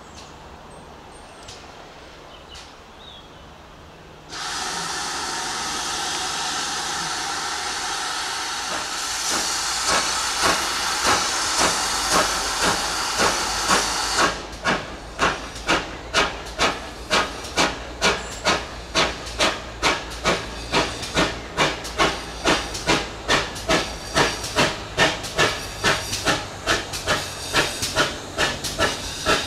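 Steam locomotive 9681, a GWR-design 0-6-0 pannier tank: a steady hiss of escaping steam starts suddenly about four seconds in and stops about ten seconds later. The engine then works past under power with an even exhaust chuff, about two beats a second.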